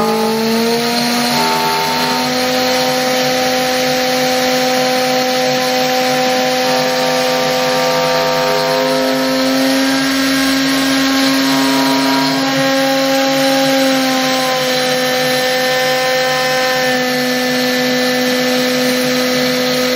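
Homemade CNC router running a 3D finishing pass in pine with a very small bit. Its steady whine holds several tones that step to new pitches every few seconds as the machine works.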